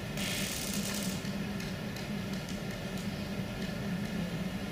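Room tone in a lecture hall: a steady low hum, with a soft hiss in the first second and a few faint clicks.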